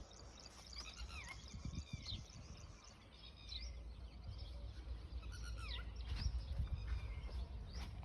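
Small birds chirping repeatedly in short curved calls, over a low rumble.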